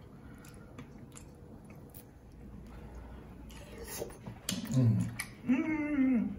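Close-up eating of crab legs and prawns: quiet chewing with scattered small clicks, then a person's voice twice in the last two seconds.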